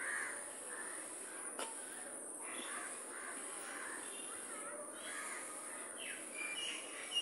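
Birds calling in short, repeated cries over a steady high-pitched hiss, with one sharp handling click about one and a half seconds in.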